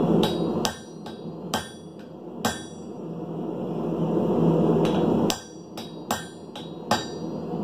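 Hand hammer striking a chisel held on hot steel on an anvil: a string of sharp, uneven metal-on-metal blows, several in the first two and a half seconds and a quicker run near the end. Behind them a steady rushing noise swells and cuts off suddenly about five seconds in.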